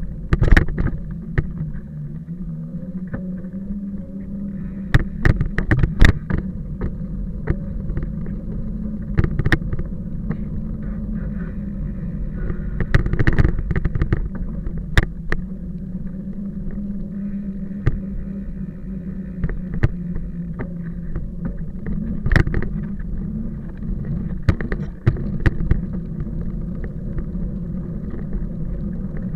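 An engine running steadily under load, with frequent sharp knocks and rattles over it.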